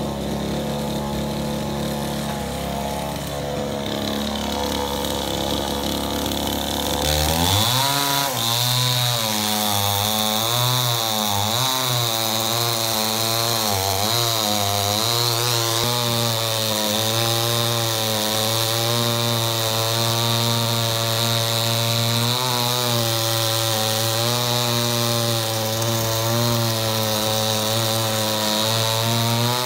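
Two-stroke chainsaw running at a steady low speed, then revving up sharply about a quarter of the way in and cutting through a felled tree trunk. Its pitch dips and recovers again and again as the chain bites under load.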